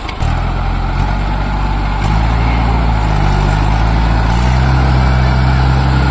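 Mahindra four-wheel-drive tractor's diesel engine running under load while it pulls a rotavator through flooded paddy mud. Its note grows heavier and a little louder about two seconds in, and again about four seconds in.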